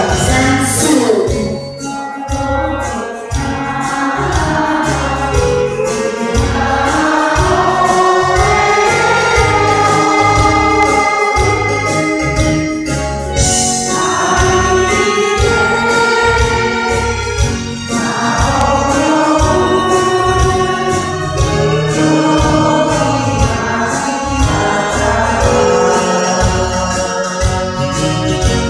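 A group of voices singing a song together in unison over a karaoke backing track with a steady beat.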